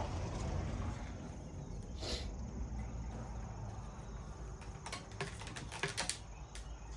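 A few light clicks and rustles of handling the unit's power cord and plug, one about two seconds in and a cluster around five to six seconds, over a steady low background rumble with insects chirping.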